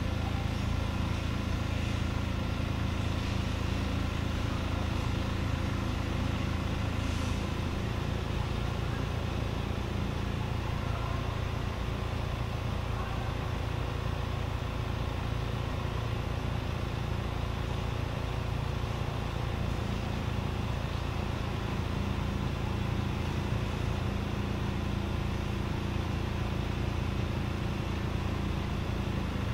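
A steady motor hum: an even low drone with faint higher tones that neither rise nor fall.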